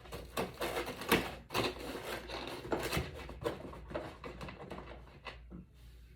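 Packing materials and parts being handled: a fast, irregular string of clicks, taps and rustles.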